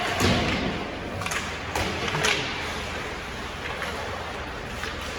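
Ice hockey play: about four sharp knocks and thuds in the first two and a half seconds, typical of sticks on the puck and the puck against the boards. Between them is the steady noise of the rink.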